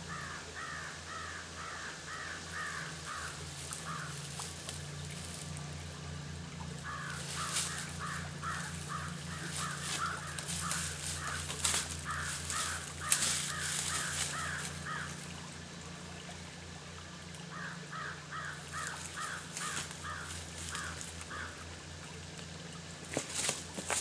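An animal's harsh calls, repeated evenly about three times a second in three long bouts. Near the end, brush crackles and rustles as a person moves through the undergrowth.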